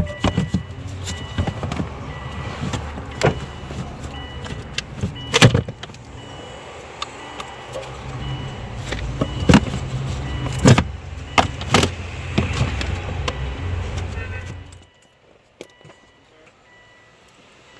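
Repeated knocks and clicks of parts being handled and fitted while the evaporator core goes back into the dashboard, over a steady low rumble that stops suddenly near the end.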